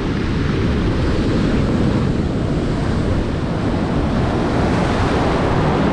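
Ocean surf breaking and churning into whitewater close around a camera held at water level: a loud, continuous rush of waves.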